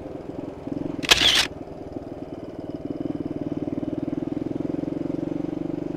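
Suzuki DR 200 Djebel's single-cylinder four-stroke engine running steadily with an even pulsing beat, getting a little louder after about two seconds. About a second in there is a short, loud burst of hiss-like noise.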